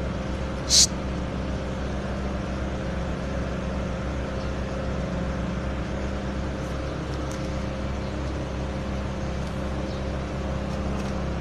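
Steady low mechanical hum at an even level, with one brief high hiss about a second in.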